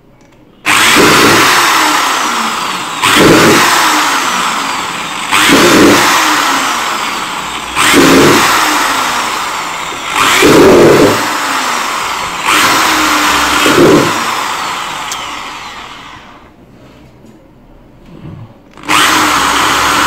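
Electric drill with a small bit drilling a row of holes through a thin black plastic seedling tray. The motor runs almost without pause, getting louder every two to three seconds as the bit bites into each new hole and then fading. It stops for about two seconds near the end, then starts again.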